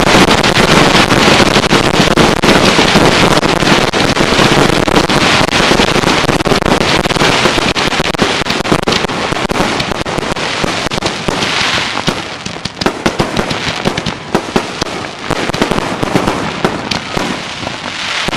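Fireworks finale: a dense, continuous barrage of aerial bursts and crackle. After about twelve seconds it thins into scattered separate pops and crackles as it dies away.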